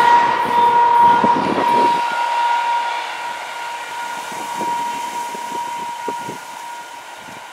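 Freight train running on the rails, with a steady high-pitched tone over it that slowly fades. A few low clunks come in the first two seconds.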